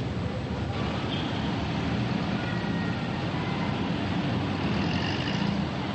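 Steady street traffic noise, with vehicle engines running in a busy town square. A few faint, thin high tones come in near the end.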